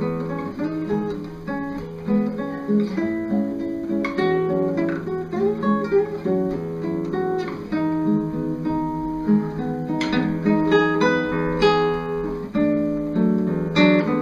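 Acoustic guitar music, picked and strummed, playing as intro music.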